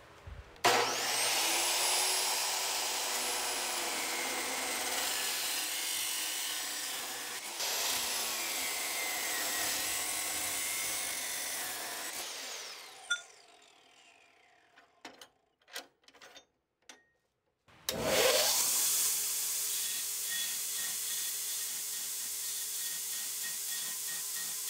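DeWalt abrasive chop saw cutting through steel stock for about twelve seconds, the motor's pitch sagging and recovering as the wheel bites. A few sharp metal clanks follow as the piece is handled, then a belt grinder runs steadily for about seven seconds, grinding the cut end of the steel.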